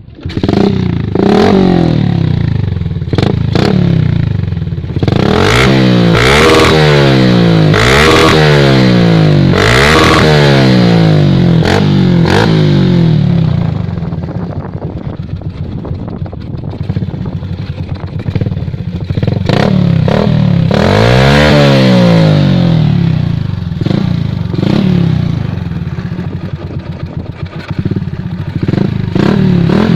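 Yamaha Sniper 135 single-cylinder four-stroke running through a stainless open-pipe aftermarket exhaust, revved up in a series of quick blips that fall back to idle, with another rev about two thirds of the way through.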